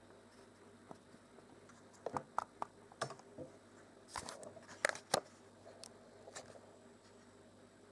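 Light, irregular clicks and taps of metal parts on a vintage Frister & Rossmann sewing machine being handled, with a cluster of clicks about two seconds in and another about four to five seconds in.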